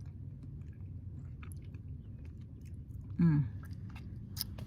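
Someone chewing a chocolate truffle, with small wet mouth clicks, and a short voice sound falling in pitch about three seconds in.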